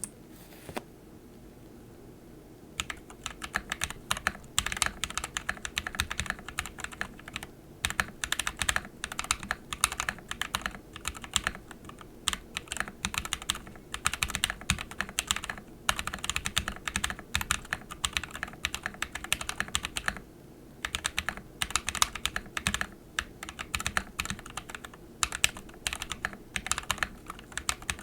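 Typing on a Coriander mechanical keyboard with a POM plate, SA-profile keycaps and Raed v1.5 switches: fast runs of key clacks, broken by a pause of about two seconds just after the start and short breaks about halfway and two-thirds of the way through.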